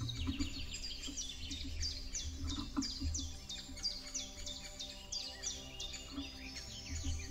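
Songbirds chirping and singing: a dense run of quick, high, downward-sweeping notes repeated many times, with irregular dull low thumps underneath.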